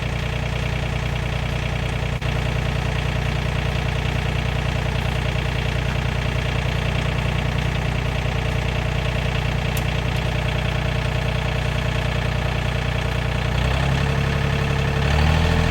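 John Deere tractor engine running steadily while chained to a tree, then revving higher in two steps near the end as it takes up the slack and pulls.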